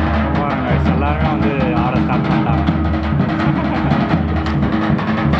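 Lively dance music driven by fast, even drumming on a dhol, with a wavering melody line over it in the first couple of seconds.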